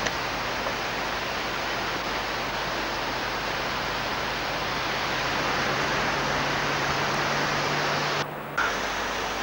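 Steady rushing noise of gale-force wind on the microphone, with a faint low hum underneath. The sound briefly cuts out about eight seconds in.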